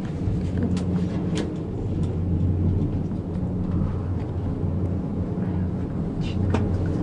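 Moving gondola cabin of a cableway heard from inside: a steady low drone, with a few short clicks about a second in and again near the end.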